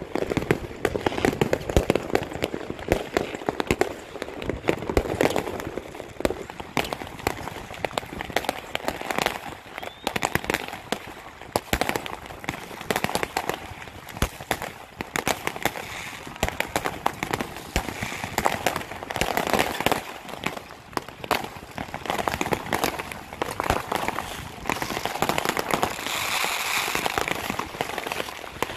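Fireworks going off: a continuous barrage of rapid cracks, pops and bangs, thickening into a hissing crackle a couple of seconds before the end.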